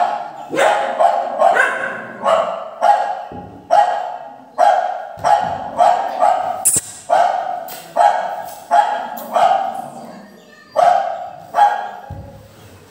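Recorded dog barks played from a phone speaker: a steady run of single barks, about one every half-second to second, with a sharp click near the middle.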